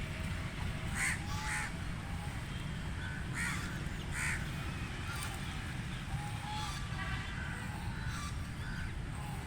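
Ducks quacking as they feed: loud harsh quacks in two pairs, about a second in and again around three to four seconds in, with fainter quacks in between.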